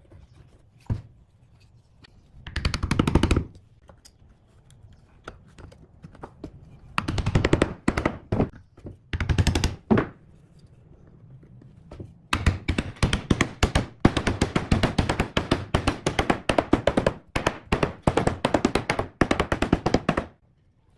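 Small hammer tapping quickly on glued hardwood inlay pieces to seat them in a pine disc, in several runs of rapid taps, the longest filling the second half and stopping just before the end.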